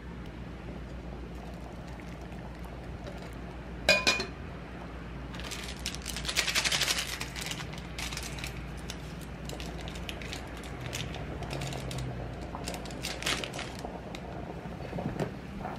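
Small handling sounds over a steady low hum: a sharp clink with a brief ring about four seconds in, a patch of crinkling clicks around six to seven seconds, and a few scattered light taps.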